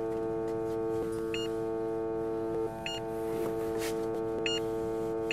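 Handheld metal-detector wand giving short high beeps, three of them about a second and a half apart, over a sustained held music chord.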